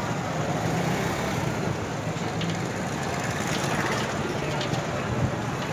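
Street traffic: motorcycle engines running as bikes pass close by, over a steady wash of road noise.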